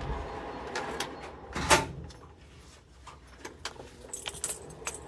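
Handling noises: scattered clicks and knocks, the loudest one about two seconds in and a quick run of clicks near the end, over a steady low hum that fades out about two seconds in.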